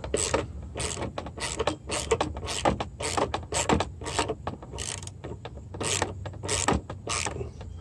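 Socket ratchet on an extension clicking in quick, irregular runs while working a Torx mounting bolt at the base of a van's side mirror.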